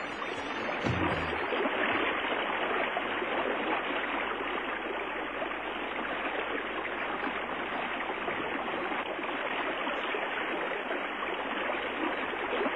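Fast-flowing river water rushing over rapids, a steady, even rush of noise.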